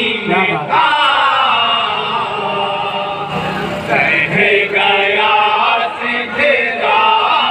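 Group of men chanting an Urdu devotional kalam in chorus through microphones, their voices bending in pitch and holding long notes.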